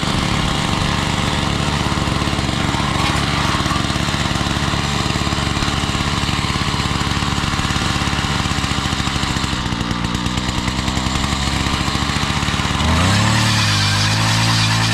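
Small petrol engine running steadily, then throttled up about thirteen seconds in, its note rising and holding higher and louder.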